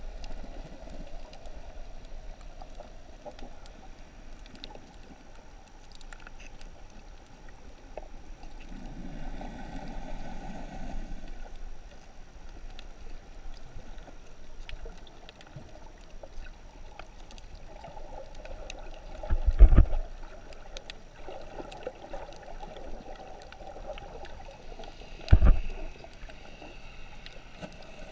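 Muffled underwater sound through a camera's waterproof housing: a steady water wash with a low rumble that swells and fades at times. Two dull, heavy thumps come near the end, about five seconds apart.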